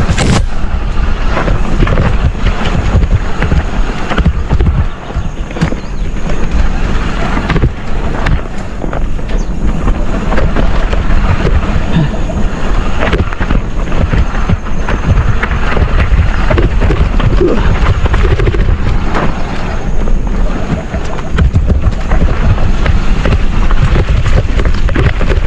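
Mountain bike descending a dirt downhill trail at speed: wind buffets the microphone over the hiss of tyres on dirt, while the bike rattles and knocks over roots and rocks.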